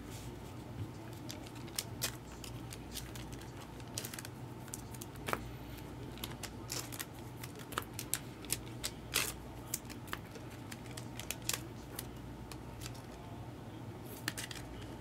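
Trading cards and packs being handled at close range: irregular light clicks and flicks, a few louder ones, over a faint steady low hum.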